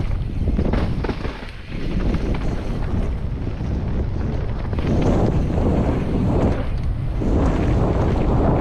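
Wind rushing over the microphone of a downhill mountain bike rider's camera at speed, mixed with tyre noise from a wet trail and frequent knocks and rattles from the bike. It drops briefly about a second and a half in, then grows louder in the second half.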